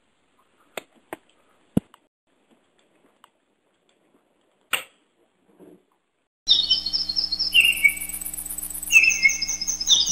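Songbird song: rapid trills of repeated high chirps that start suddenly after a few scattered clicks, over a low steady hum.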